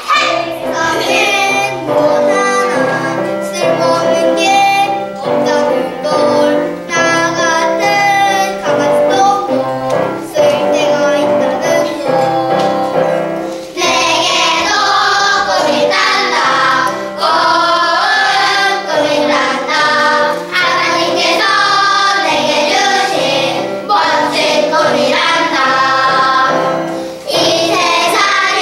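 A group of young children singing a song together in chorus, with low accompanying notes beneath the voices. The singing grows fuller about halfway through.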